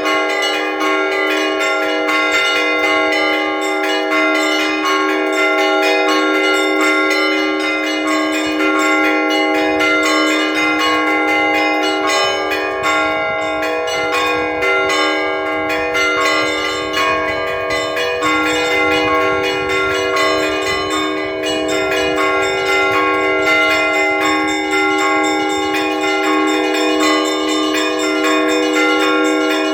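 Orthodox church bells rung by hand for a feast day, several bells of different pitch sounding together in a continuous peal without a pause.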